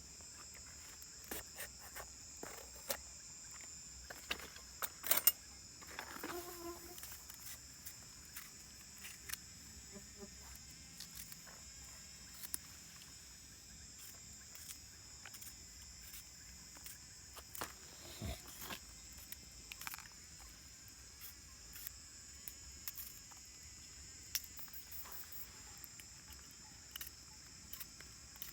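Insects chirring in a steady, high-pitched drone, with scattered short clicks and knocks over it, the sharpest about five seconds in.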